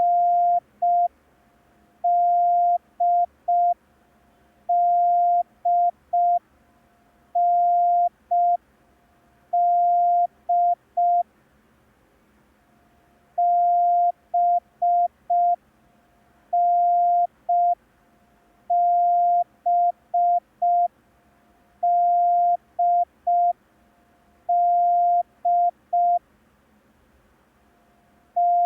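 Morse code practice tone: a single steady beep keyed in dahs and dits, sending the letters N, D and B in random order, one letter every two to three seconds, for copying by ear.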